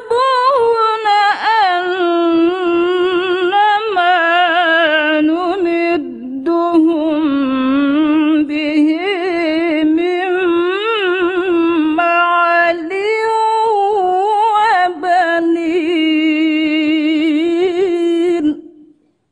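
A woman reciting the Quran in the melodic tilawah style: long drawn-out chanting held around one note with wavering ornamental runs. It pauses briefly about six seconds in and stops about a second before the end.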